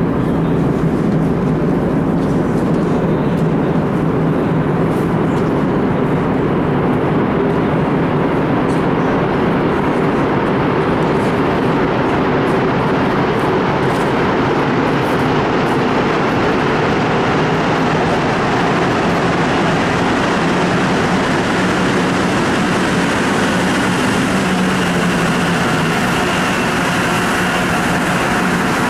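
Montreal Metro rubber-tyred train approaching along the track, its noise building through the second half over a steady loud rumble, and running into the platform near the end.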